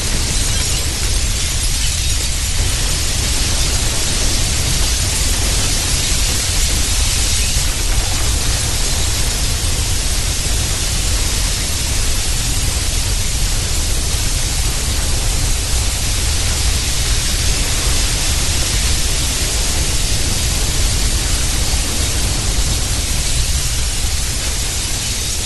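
Earthquake rumble sound effect: a loud, steady noise with a deep low rumble under a bright hiss, with no separate crashes or impacts.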